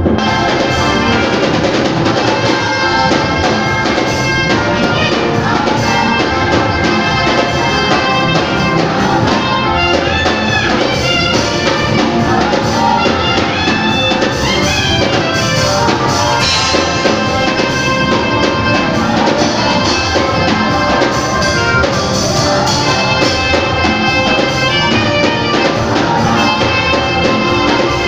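Live praise band playing loud, upbeat gospel music, a saxophone leading the melody over keyboard and drums, with some bending, sliding notes about ten to fifteen seconds in.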